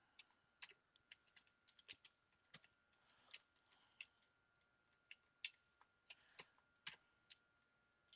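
Faint computer keyboard typing: irregular keystrokes as a spreadsheet formula is typed and entered.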